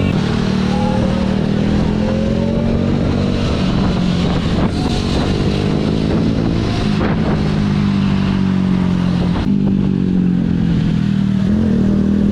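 Motorcycle running steadily under way, its pitch drifting slowly up and down, with a heavy low rumble beneath it.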